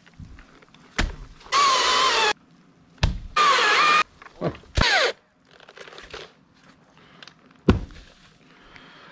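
Three short bursts of a power saw cutting wood, each with a whine that rises and falls and cuts off cleanly. Heavy wooden thuds come in between, four in all.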